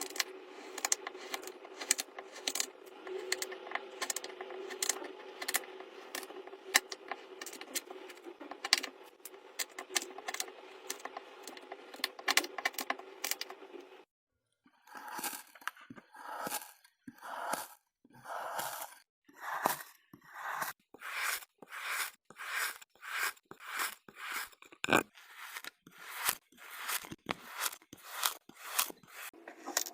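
Kinetic sand being worked and cut with a knife. At first there is a dense run of crisp little crackles and clicks over a steady hum. After a brief dead gap about halfway, separate crunchy slicing strokes follow, roughly two a second.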